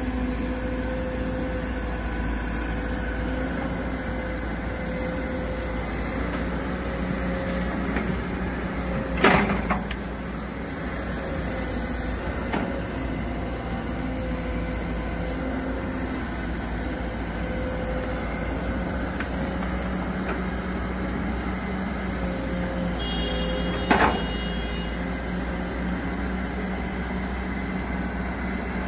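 Kobelco SK200 excavator's diesel engine running steadily under working load, with two sharp metallic clanks, about nine seconds in and again about five seconds before the end.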